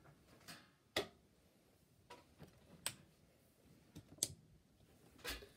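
Faint, short clicks, three clear ones one to two seconds apart with fainter ones between: desk lamp switches being clicked on to light the set.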